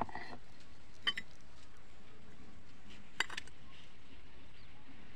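Three short metallic clinks of a small steel bowl being handled while ground poppy-seed paste is scraped off a flat grinding stone into it: one at the start, one about a second in, one about three seconds in.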